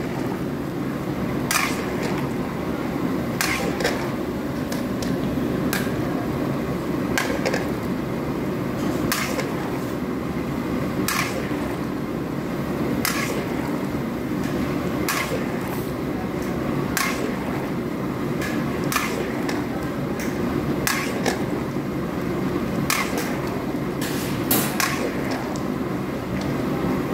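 A spatula knocking and scraping against a large paella pan as the soupy rice is stirred, a sharp click roughly every two seconds over a steady low rumble.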